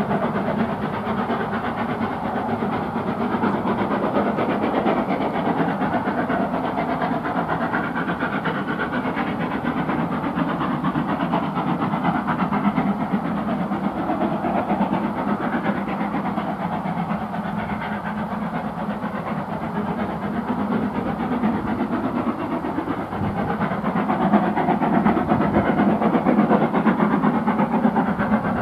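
LMS Jubilee class three-cylinder steam locomotive working hard up a bank with a heavy train: a steady exhaust with the coaches rolling on the rails, growing a little louder near the end.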